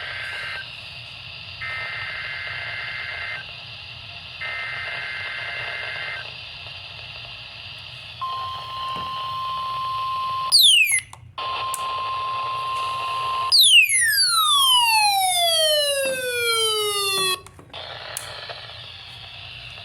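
NOAA Weather Radio weekly test signal through a Midland ER210 weather radio's speaker, over steady hiss: three SAME header data bursts of two-pitch warbling, each about two seconds long, then the steady warning alarm tone, broken off briefly after about two seconds. Near the end a long sweep of several pitches falls from very high to low and cuts off.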